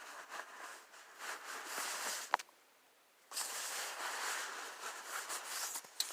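Rustling and handling noise of items being moved about in a vest, with one sharp click a little over two seconds in and a drop to near silence for about a second just after it.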